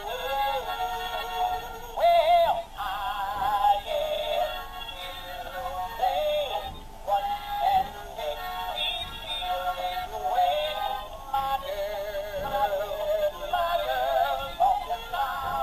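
Interactive plush dog toy singing a song with backing music through its small built-in speaker. The electronic voice sounds thin, with almost no bass.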